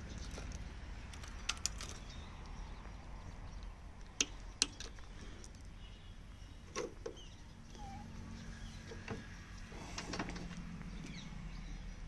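A few short sharp clicks and taps over a low steady rumble, with no engine running.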